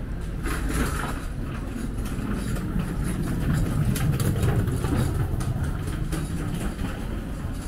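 Low vehicle engine rumble that swells and fades around the middle, with light clicking and clatter over it.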